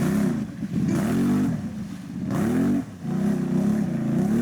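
Can-Am Renegade XMR 1000R ATV's V-twin engine revving up and down repeatedly as it churns through a deep mud hole, with bursts of spinning tyres throwing water and mud.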